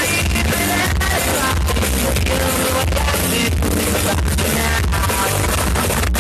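Loud dance music with a heavy bass and a singing voice, played over an aparelhagem sound system.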